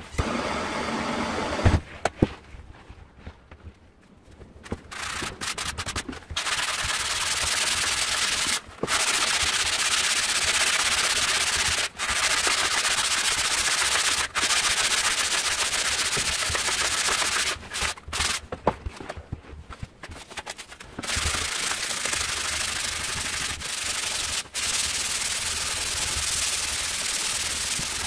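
Sandpaper rubbed by hand along an oak tool handle, rasping in long back-and-forth runs with short pauses. The sanding gets going about five seconds in, after a sharp knock and a quieter spell.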